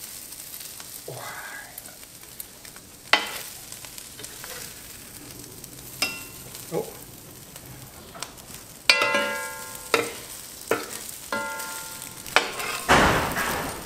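Metal tongs knocking and clinking against a cast iron Dutch oven as pieces of seared beef and onion are dropped in, over a faint sizzle from the meat on a hot steel plate. About six sharp knocks, two of them ringing briefly with a metallic tone, and a louder rush of noise near the end.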